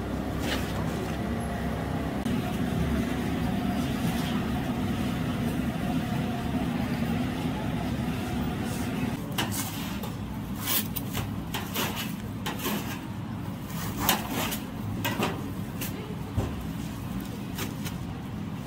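A steady low rumble of street background, then from about halfway a bread knife crunching through the crisp breadcrumb crust of deep-fried sandwiches on a steel counter. The cutting comes as a run of sharp crackles and clicks.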